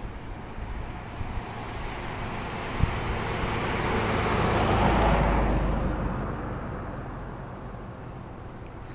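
A motor vehicle passing by: its engine and road noise swell slowly, peak about halfway through, then fade away. A single short knock sounds just before the peak.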